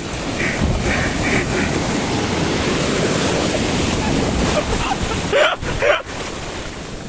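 Shallow sea surf breaking and rushing close by, with wind buffeting the microphone.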